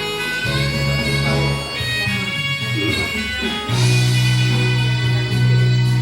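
Instrumental backing music, with a plucked guitar over held chords and a steady bass.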